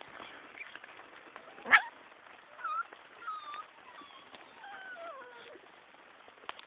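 American Staffordshire bully puppies whining and squeaking: thin, high calls, several sliding down in pitch, with one short, sharp louder sound just under two seconds in.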